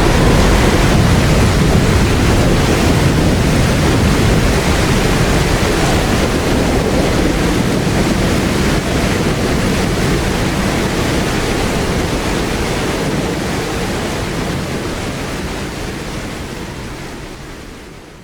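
Loud, steady rushing wind-like noise with a deep rumble underneath, slowly weakening and then fading out near the end.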